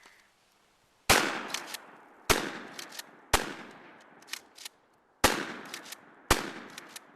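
Remington 870 pump-action 12-gauge shotgun firing birdshot five times in quick succession, about a second apart with a longer gap before the fourth shot. Fainter clicks between shots fit the pump action being racked.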